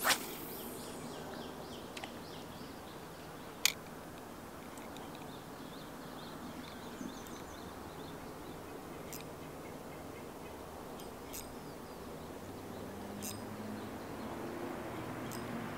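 Outdoor river ambience: birds chirping in the background over a steady hiss, with a handful of sharp clicks, the loudest about three and a half seconds in.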